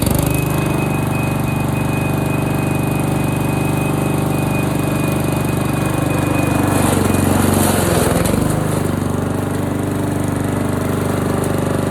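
Honda HRR walk-behind lawn mower's engine running at full speed just after starting, a steady drone. Between about seven and nine seconds in a rush of noise rises over it and the engine briefly dips in speed, as if taking on a load.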